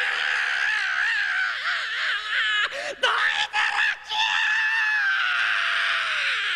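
High-pitched screaming, the wavering cries broken by short gaps about three seconds in. This gives way to one long drawn-out yell that slowly falls in pitch near the end, matching the on-screen "dooiteee!" ("get out of the way!").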